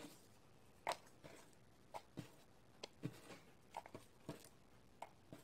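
Martagon lily bulb scales dropped one by one into a small plastic cup, making faint, irregular light clicks, roughly two a second.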